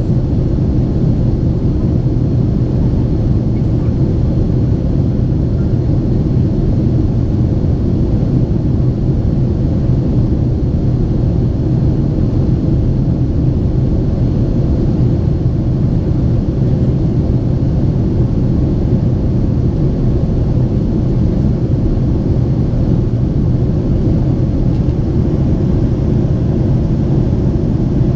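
Steady cabin noise of a Boeing 767-400ER in flight: the low rumble of its GE CF6-80C2 turbofans and airflow, heard from a rear economy window seat. A faint, even hum runs through it.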